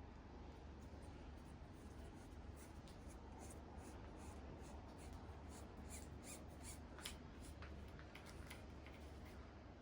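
Faint handling sounds of a plastic ferrule being pushed onto bicycle cable housing: small scattered clicks and rubbing, over a low steady hum.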